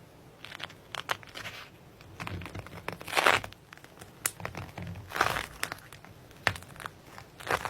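Slime being pressed and pulled by hand: a series of short crackling, squishing bursts, the loudest about three seconds in and another about five seconds in.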